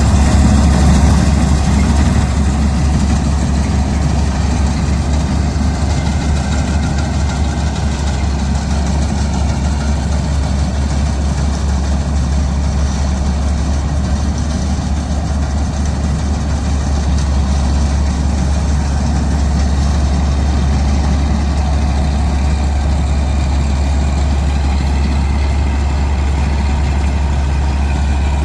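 Diesel engine of heavy farm machinery running steadily with a constant deep drone.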